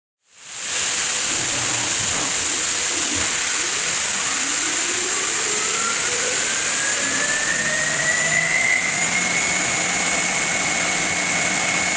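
CNC milling machine running with a loud steady hiss, its spindle whine rising in pitch for several seconds and then holding steady as it comes up to speed.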